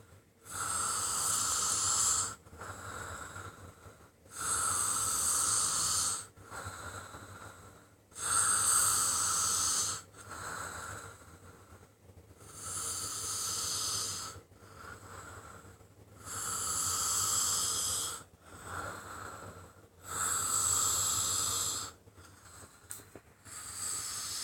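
A sleeping person snoring: six loud, hissing snores, each about two seconds long and about four seconds apart, with quieter breathing between them.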